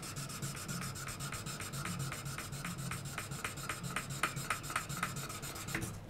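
Sandpaper on a lollipop stick rubbed back and forth by hand over the edge of a nickel-plated watch case held in a vise: a rhythmic scraping of about three strokes a second that stops near the end.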